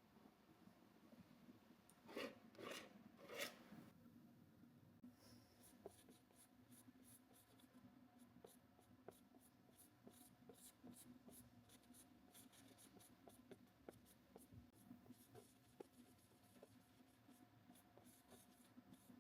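Faint paintbrush strokes on canvas: three short brushing strokes, then many light quick ticks of the brush against the canvas.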